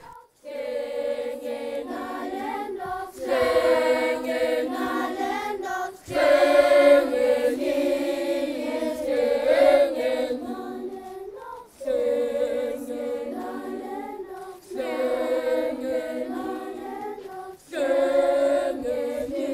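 A choir singing in held phrases of a few seconds each, with short breaks between them.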